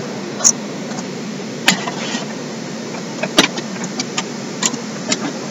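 Steady running noise inside a passenger train carriage, with a few scattered light clicks.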